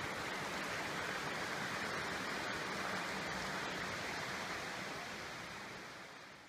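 Steady rush of running water from a creek in a rocky hollow, fading out near the end.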